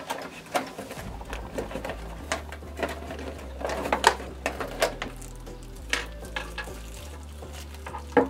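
Cardboard boxes being pulled open and handled, plastic wrappers crinkling and dig-kit eggs knocking on a wooden tabletop: a run of short sharp clicks and rustles, the loudest about four seconds in and near the end.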